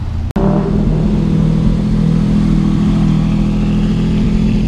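Lamborghini Aventador's V12 engine running loud and steady as the car pulls away. It starts abruptly after a split-second dropout in the sound.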